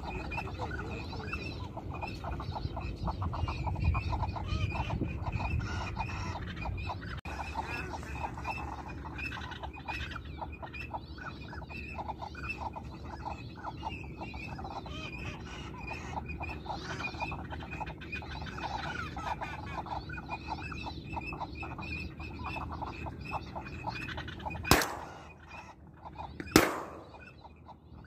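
Ducks quacking in a steady rapid chatter. Near the end come two shotgun shots about two seconds apart, much louder than the quacking, each trailing off.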